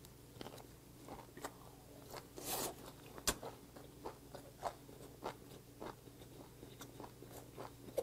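Close-miked chewing of a mouthful of gwamegi, half-dried fish, in a leafy wrap: wet mouth smacks and clicks, with a louder crunchy bite about two and a half seconds in and a sharp click just after.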